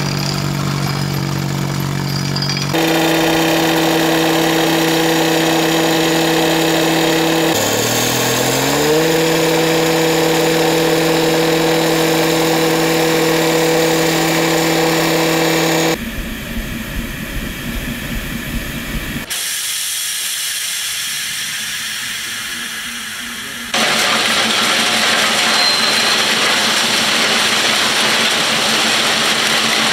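The small petrol engine of a rail cutting saw runs steadily at speed. Its pitch sags and recovers once as the abrasive disc bites into the rail. After a couple of abrupt changes of sound, loaded freight wagons roll past on the rails with a steady, even rumble near the end.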